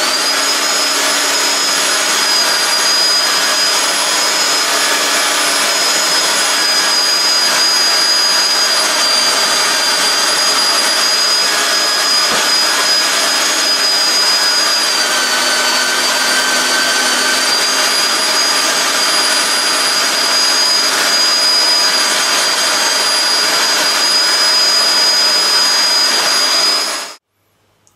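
Kenwood electric meat mincer running loud and steady with a high motor whine, grinding fish into groundbait as they are pressed down the feed tube; the whine sags a little in pitch midway under the load. It switches on at the start and cuts off abruptly about a second before the end.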